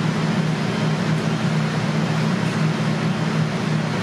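Steady rushing hum of a ventilation fan, with a constant low tone underneath.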